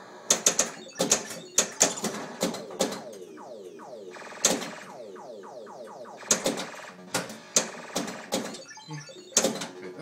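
Sorcerer pinball machine in play: a rapid run of sharp solenoid clacks from flippers and bumpers, mixed with the game's electronic sound effects, including several falling-pitch sweeps in the middle.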